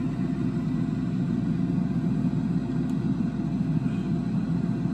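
A steady, even low rumble of background noise with no distinct events.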